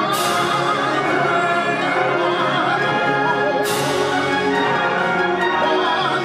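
Full concert band of winds, brass and percussion playing a sustained passage, with a cymbal crash at the very start and another about three and a half seconds later, and an operatic tenor voice singing over the band.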